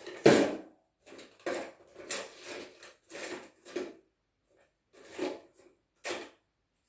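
Handling noises from painting supplies: about six irregular clunks and rustles as containers and a wooden stirring stick are picked up and set down, the loudest a sharp knock just after the start.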